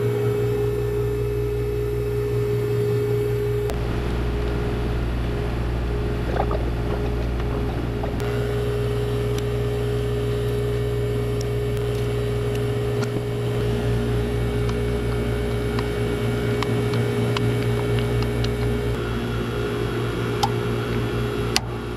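Vacuum pump running steadily as it evacuates the refrigerant system after a compressor replacement, a constant motor drone with a steady tone. A few light clicks and taps sound over it.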